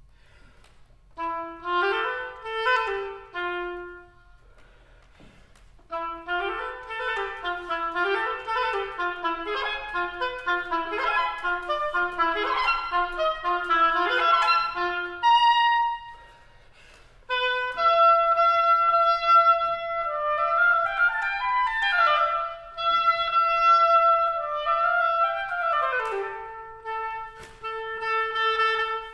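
Solo oboe playing unaccompanied. A short phrase gives way to a pause, then about ten seconds of quick running notes; after another short break come longer held notes joined by slurs.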